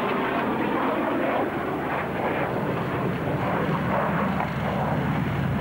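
Panavia Tornado F3 jet fighter flying a display, its twin RB199 turbofan engines giving a steady jet roar.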